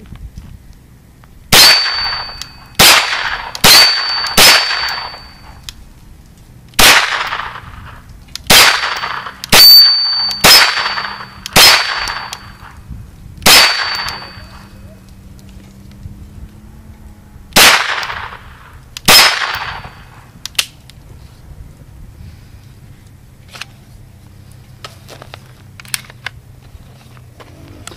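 Twelve single 9mm shots from a Kel-Tec Sub2000 Gen 2 carbine, fired at an uneven pace over about twenty seconds, each with a short ringing tail; the carbine cycles every round without a malfunction. A few faint clicks follow near the end.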